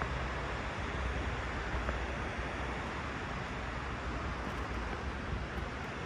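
River water rushing steadily over rocks, with a low rumble underneath.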